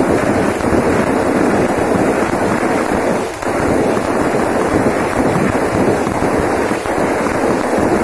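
Aerial fireworks going off in a rapid, near-continuous barrage of bursts and crackles, with a brief lull about three seconds in.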